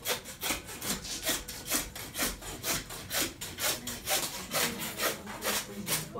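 Hand saw cutting back and forth through the bone of a hanging side of pork, a steady rasping stroke about four times a second.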